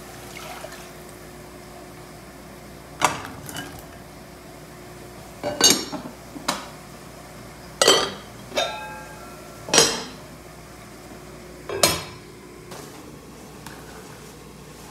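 Metal pot lids being set down on aluminium cooking pots on a stovetop: a series of about eight sharp clanks, some ringing briefly, spread irregularly over several seconds. A faint steady hum runs underneath.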